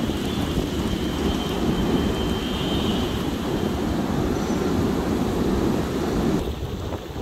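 Flash-flood water advancing over a dry gravel wadi bed: a steady, low rushing noise of the muddy torrent, which falls quieter near the end.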